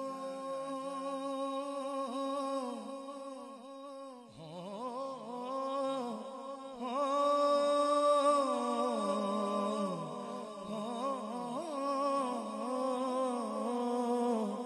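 Male naat singer singing a wordless, hummed alaap into a microphone. He holds long notes and ornaments them with wavering runs. There is a short break about four seconds in, and the singing grows louder from about halfway.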